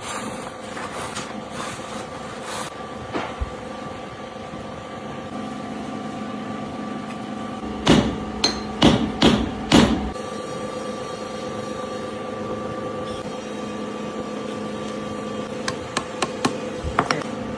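Hammer blows on metal: a quick run of about five loud, ringing strikes around the middle, then a few lighter taps near the end, over a steady machine hum.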